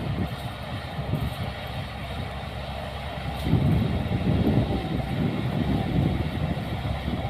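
Diesel engine of heavy earthmoving machinery running steadily, growing louder about three and a half seconds in.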